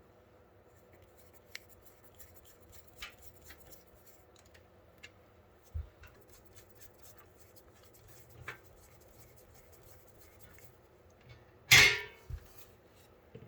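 Sparse light clicks and taps of PC case hardware being handled while fan mounting parts are fitted, with one loud sharp clack about twelve seconds in.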